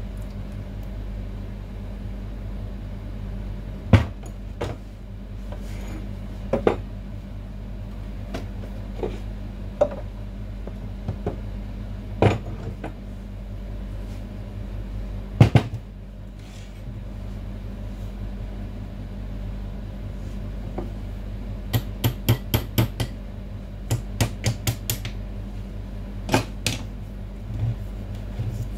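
Metal parts of a hair-cutting chair's hydraulic lift cylinder clinking and knocking as they are handled and fitted together by hand, over a steady low hum. Single knocks come every few seconds, then a quick run of clicks near the end.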